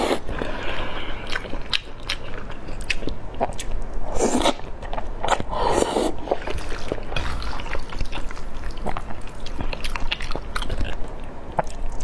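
A person eating close to the microphone, biting and chewing food with many sharp wet mouth clicks and a few louder swells of sound.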